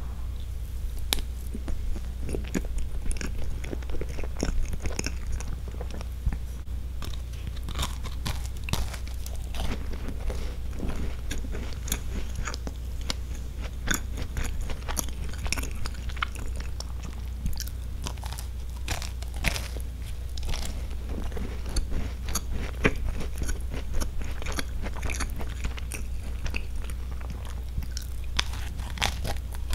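Close-miked chewing and biting: a mouthful of soft sponge roll cake, then bites of a crisp, wafer-like sandwich biscuit, with many small crunches and mouth clicks throughout.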